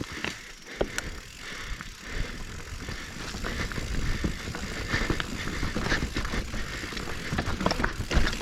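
Mountain bike riding over rocky singletrack: tyres rolling on dirt and rock, with rattling and frequent sharp knocks from the bike, growing louder through the stretch.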